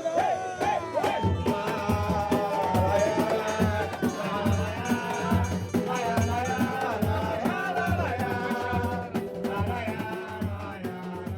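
Samba de raiz played live: a melody line over steady bass notes and busy shaker-and-drum percussion, fading out near the end.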